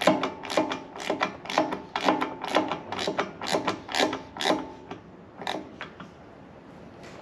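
13mm ratcheting wrench clicking in short strokes, about two a second, as a load bar clamp nut is snugged onto its bolt. The strokes stop about five seconds in, with one more click a little later.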